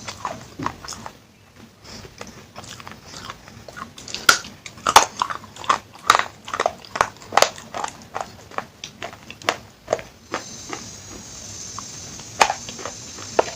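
Person biting and chewing pieces of baked clay pot (claypot handi) close to the microphone. The sharp, irregular crunches come thickest through the middle.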